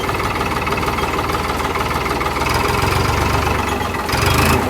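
Tractor diesel engine running, fitted with an add-on turbo whistle. Its low rumble strengthens a little about halfway through, then a brief loud rushing hiss comes about four seconds in.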